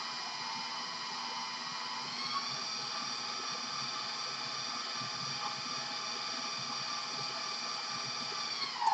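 A 20-year-old KitchenAid stand mixer's motor runs with a steady whine while it stirs dry ingredients in its bowl. It steps up in speed about two seconds in, and starts to wind down right at the end.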